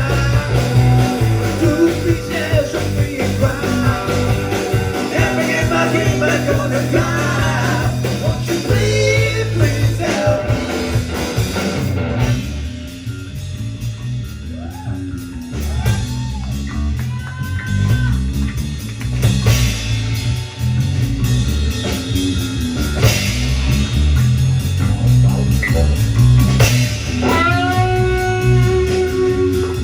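Live rock band playing, with electric guitar, bass and drums. About twelve seconds in the band thins out and the electric guitar plays bending lead notes before the full band comes back in.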